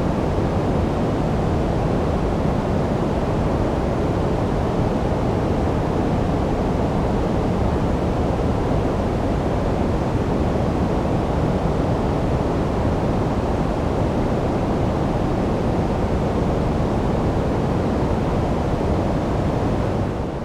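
Steady synthetic sleep noise, a deep, even rushing hiss with most of its weight in the low end and little treble, darker than true white noise. Near the very end it begins to fade out.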